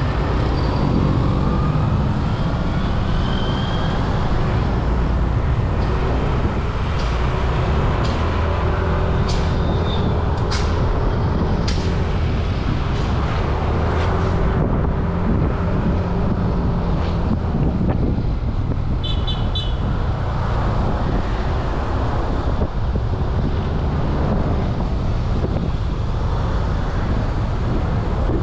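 Motorcycle engine running steadily while riding through town traffic, with road noise. There are a few short clicks near the middle and a brief burst of high beeps about two-thirds of the way through.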